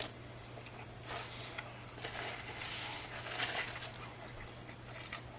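Soft chewing and mouth sounds of someone eating a burger, with small rustles and clicks, over a faint steady low hum.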